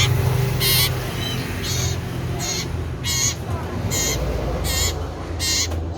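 Common iora (cipoh) calling: short, harsh, buzzy notes repeated steadily, about one every three-quarters of a second, over a low steady hum.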